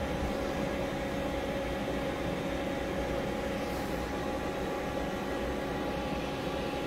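A/C recovery-and-recharge machine running while it charges refrigerant into a car's air-conditioning system: a steady hum with an even hiss, the sound of the charge flowing in, which the mechanic at first took for a leak.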